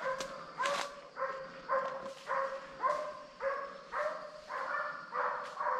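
A hunting dog barking in a steady, regular run, about two barks a second, while trailing a wild boar.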